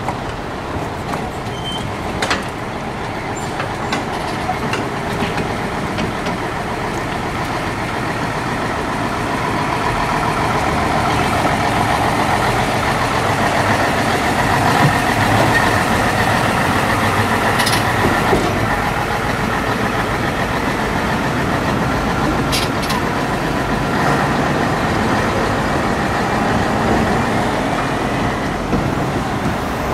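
Scania 112 truck's 11-litre straight-six diesel running as it tows a box trailer slowly past at close range. The engine grows louder towards the middle as the truck draws level, then stays steady. A few brief sharp noises stand out over it.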